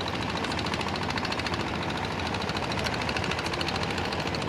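A boat engine running steadily with a rapid, even knocking beat.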